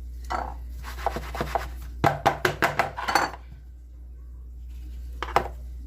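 Kitchen utensil scraping and knocking against a bowl and baking tray, with a run of quick knocks about two seconds in and one more click near the end.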